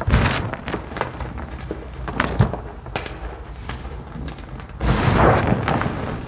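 Hands crushing and crumbling dry dyed powder blocks: a series of sharp, crisp crunches, then a longer crunching, gritty rush about five seconds in as the hands press down into the crumbled pile.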